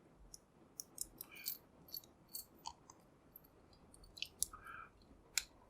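Faint, scattered light clicks and scrapes of small metal tools working a cheap padlock, as a padlock shim is fitted into the shackle to open it.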